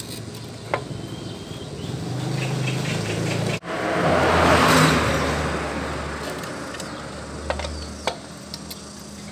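Engine of a passing motor vehicle, growing louder, loudest about four to five seconds in, and dying away by about eight seconds, with a brief dropout just before the peak. A few sharp metal clicks from a hand wrench working the bolts on a scooter's CVT cover.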